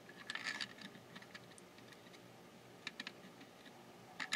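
Light clicks and taps of small plastic parts and hand tools being handled at a workbench: a few scattered ticks, with one sharper click near the end.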